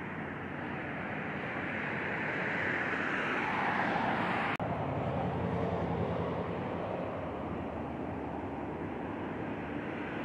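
Jet airliner passing by: engine noise swells to a peak about four seconds in, its pitch falling as it goes past, then eases off. A single sharp click with a momentary dropout cuts in just after the peak.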